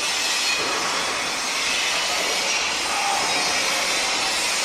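Construction-site machinery noise: a steady, dense din with no distinct knocks or bangs.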